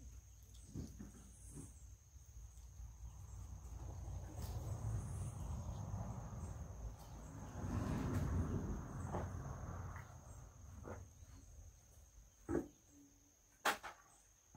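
Insects keep up a steady high-pitched buzz. A low rushing noise swells to its loudest about eight seconds in and then fades, and a few sharp knocks come near the end.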